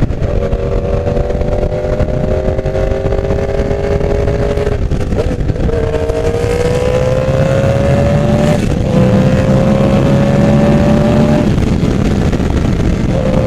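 Yamaha YZF-R1's inline-four engine pulling under acceleration from the rider's position. Its pitch climbs steadily in each gear, with brief breaks for upshifts about five and nine seconds in, over steady wind rush.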